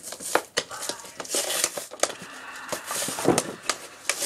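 A toy figure's box being handled and opened: a run of rustles, scrapes and sharp clicks of packaging.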